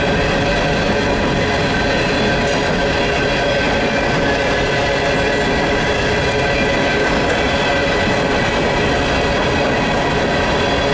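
Empty coal hopper cars of a freight train rolling past: a steady loud noise of steel wheels on rail, with steady ringing tones from the wheels over it.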